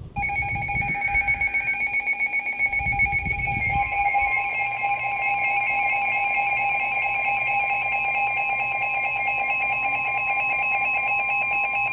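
Emergency Alert System attention signal: a loud, steady electronic alarm of held tones, with another higher tone joining about four seconds in. It signals that an emergency alert, here a flash flood warning, is about to be read.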